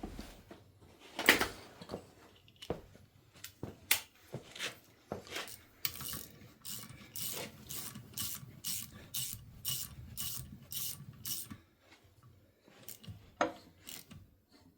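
Hand ratchet being worked on the engine with the socket on a bolt, giving scattered metal clicks and knocks. About halfway through it settles into a steady back-and-forth, two or three ratchet strokes a second, for several seconds, then stops.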